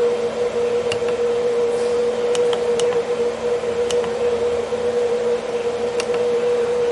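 About six small clicks of keys being pressed on a Huanyang VFD's front keypad, spread over the first six seconds, over a steady machine hum with a clear mid-pitched tone.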